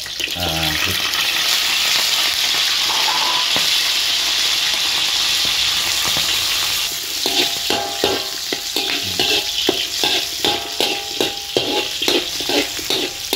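Oil sizzling in a wok around frying shallots, garlic and fresh chilies. From about seven seconds in, a metal spatula stirs and scrapes against the wok, about two strokes a second, over the sizzle.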